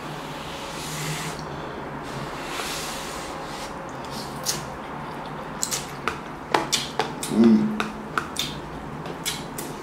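Ramen noodles being slurped and chewed close to the microphone. Two soft slurps in the first few seconds are followed by a run of wet mouth clicks and smacks, with a brief voiced sound about three quarters of the way through.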